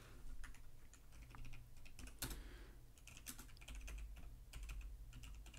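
Typing on a computer keyboard: an irregular run of faint key clicks.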